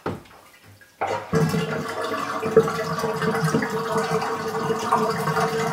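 A brief splash in the water as the bathtub's plug is pulled, then from about a second in the full tub drains: a steady rush of gurgling water with a steady tone running through it.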